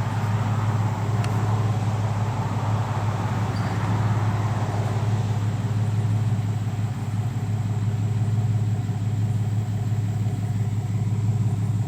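Pickup truck engine idling steadily with a low, even hum. A broad rushing noise fades away over the first few seconds.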